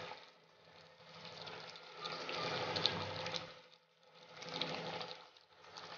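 Thick yam porridge simmering in a pot and being stirred with a spoon: wet sloshing and bubbling that swells and fades about three times, with light crackling.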